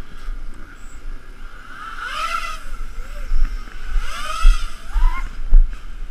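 Tricopter's three SunnySky 2205 2300KV brushless motors and propellers whining as it takes off on a 3-cell battery. The pitch swoops up and down several times as the throttle is worked, most strongly about two seconds in and again around four to five seconds.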